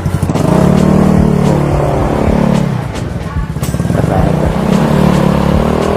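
Motorcycle engine pulling away: the pulsing idle gives way to a rising engine note, which eases off briefly about three seconds in and then climbs again.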